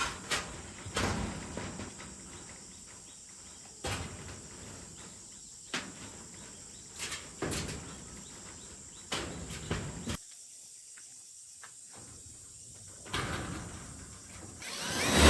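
Irregular sharp knocks and handling clatter, a dozen or so spaced a second or two apart, over a steady hiss with a faint high insect drone. A louder rushing noise swells up near the end.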